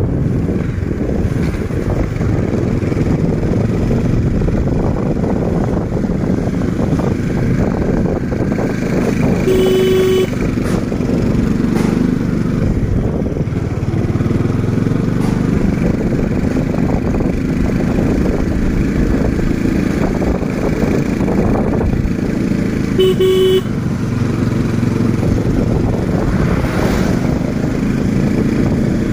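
Motorcycle engine running at a steady pace while riding. A horn beeps briefly twice, about ten seconds in and again about twenty-three seconds in.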